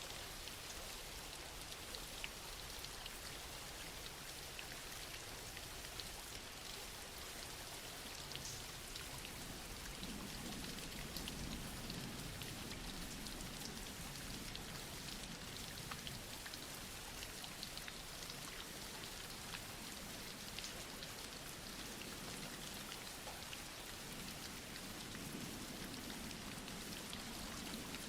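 Steady soft rain falling, with scattered individual drops ticking on a surface.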